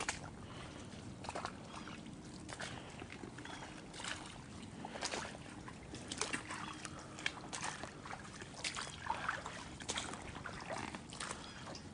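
Faint scattered rustles and short clicks of a handheld camera being held and shifted close to the face.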